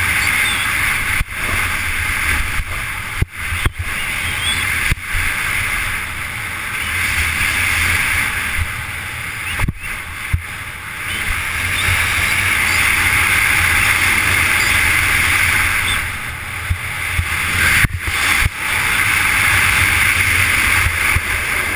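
Snowboard running fast over packed snow, a steady rushing hiss of the base and edges on the snow mixed with wind buffeting the body-mounted camera's microphone, broken by a few very short gaps.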